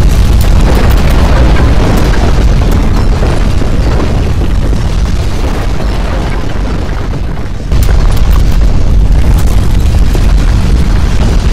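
Loud, deep earthquake rumble, a continuous roar with scattered crackles, standing for violent ground shaking. It eases off gradually, then jumps back to full strength abruptly about eight seconds in.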